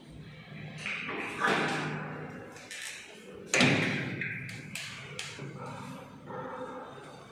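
Two loud thuds about two seconds apart, the second sharper and louder, followed by a few lighter knocks.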